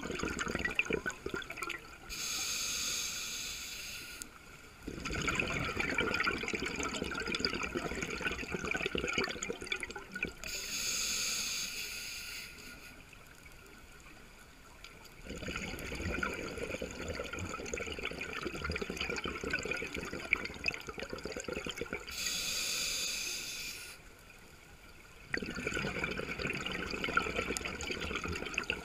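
Scuba diver breathing through a regulator underwater: a hissing inhale lasting about two seconds, then a long bubbling exhale, the cycle repeating three times.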